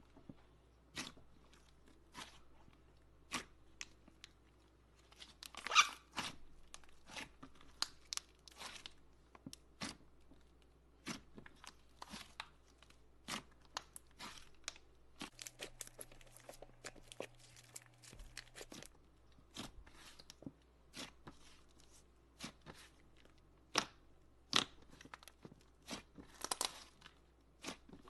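Slime being squeezed and worked by hand, giving irregular sharp pops, clicks and crackles, with a louder cluster about six seconds in and again near the end.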